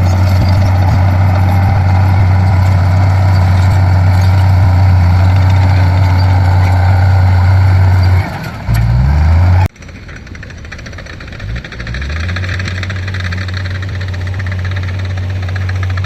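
Heavy diesel engines of earthmoving machinery running with a strong steady low drone, and a brief change in engine pitch about eight seconds in. The sound cuts off abruptly about ten seconds in and comes back quieter, with the low engine drone building again.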